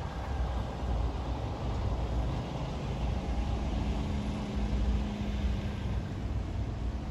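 A semi-truck pulling a trailer-mounted fairground ride drives past, its diesel engine running with a steady low rumble and a faint hum that comes through about four seconds in.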